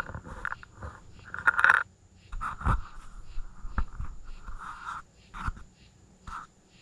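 Raccoon eating oatmeal from a plastic bowl: irregular smacking and slurping with sharp clicks against the bowl, thinning out near the end.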